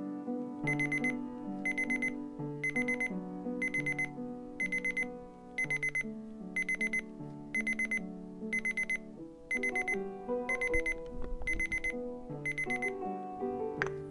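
Digital alarm clock beeping: a rapid run of high beeps repeated about once a second, thirteen times, then stopping near the end. Slow, sustained background music plays underneath.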